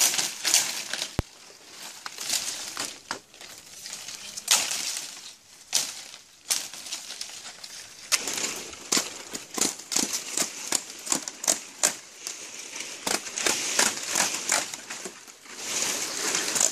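Machete strokes cutting the leaflets off palm fronds for thatch: repeated sharp, irregular chops mixed with the rustle and crackle of the stiff leaves.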